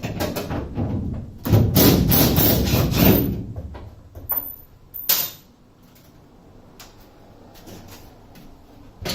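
Loud clattering and scraping of metal parts for about three seconds as the rear air-conditioning unit of a school bus is worked loose, then a few separate knocks.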